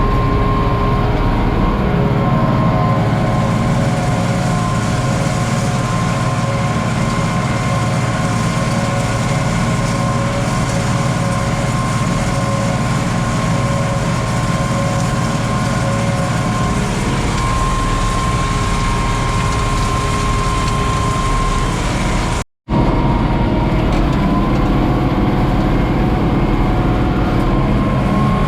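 Farm tractor engine running steadily, with a steady whine over the engine note. The sound cuts out suddenly for a moment near the end, then picks up again.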